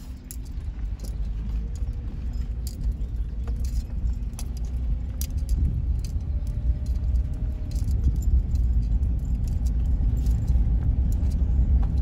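Road noise inside a moving SUV's cabin on a rough rural road: a steady low rumble that grows gradually louder, with frequent light jingling and rattling clicks.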